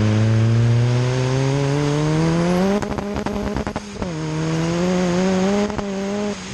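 Turbocharged Ford Zetec four-cylinder engine pulling hard, its exhaust exiting straight out the side. The engine note rises steadily, then drops sharply at a gear change about three seconds in, with a run of sharp pops and crackles. It then climbs again in the next gear and falls away near the end.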